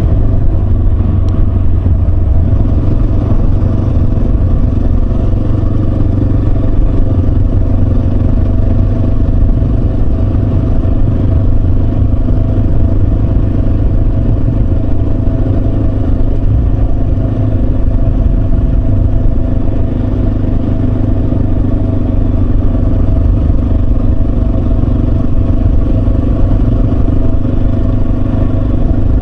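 Yamaha Serow 250's air-cooled single-cylinder engine running at a steady cruising speed, its pitch holding almost level, over a heavy low rumble.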